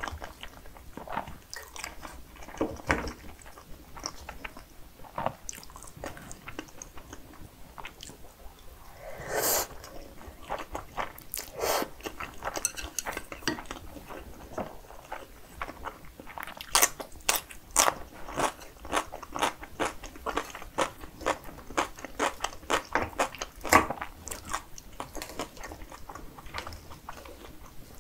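Close-miked eating: chewing and biting spicy cream cheese fried rice and sausage, with many sharp crunchy mouth clicks that come thickest in the second half and a couple of longer wet swishes near the middle.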